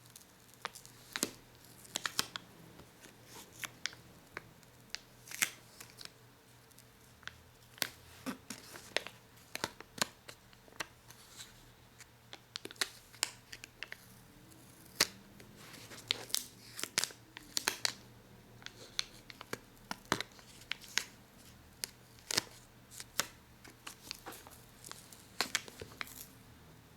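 Scratching and peeling of paper and plastic on a notebook: irregular sharp crackles and scratches, a few each second, some much louder than others.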